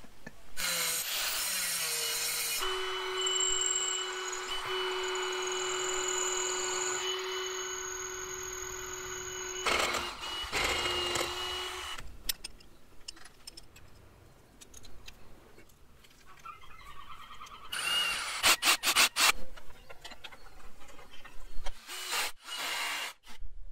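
A power tool running steadily with a held whine for about nine seconds, starting again briefly just after, then scattered sharp knocks and clicks later on.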